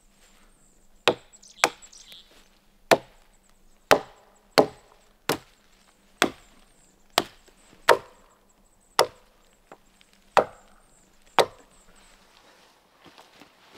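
Wood being chopped with a blade: about a dozen sharp, separate strikes, roughly one a second at an uneven pace, stopping near the end.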